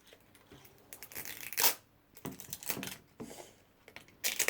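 Plastic toy packaging crinkling and rustling as it is handled and pulled open, in several short bursts, the loudest about one and a half seconds in.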